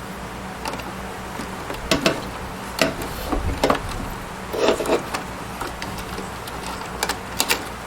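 Irregular clicks and knocks of a 3.5-inch hard drive being pushed and fitted into a desktop tower's drive bay, some in quick pairs, over a steady low hum.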